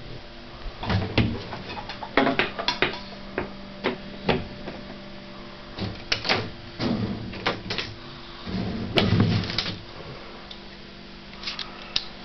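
Irregular knocks, clicks and rattles of objects being handled, some with a low thud, over a faint steady hum.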